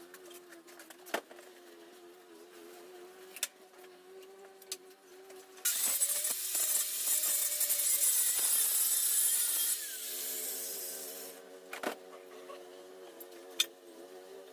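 Angle grinder cutting through 3/4-inch steel plate: a loud, hissing cut of about four seconds in the middle that trails off, with scattered ticks and knocks and a steady low hum around it.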